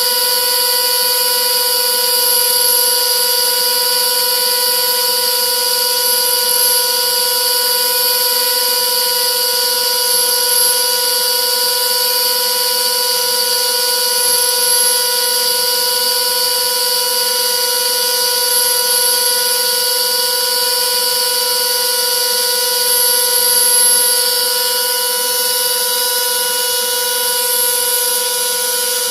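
Spindle of a homemade CNC carving machine running at a steady, unchanging high whine as it carves wood.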